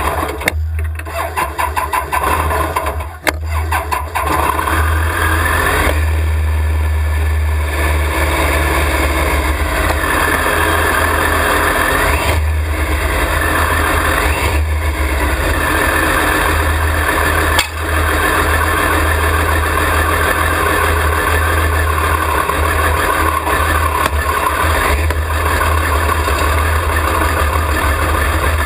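Triumph 955cc inline-three motorcycle engine of a homemade go-kart running, cutting in and out a few times in the first seconds, then idling with revs rising and falling. Near the end the kart moves off under power.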